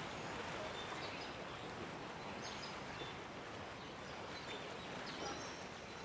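Steady outdoor ambient noise with a few short, faint, high chirps scattered through it, likely birds.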